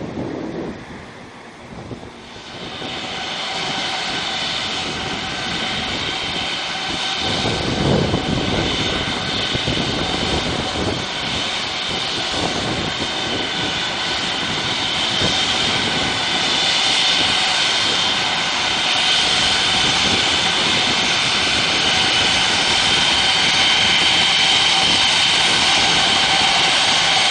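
Airbus A340's four CFM56 turbofan engines whining steadily at taxi power, a high whine with several steady tones over a broad rush that slowly grows louder as the airliner comes closer. The first couple of seconds are quieter, before the jet whine comes in.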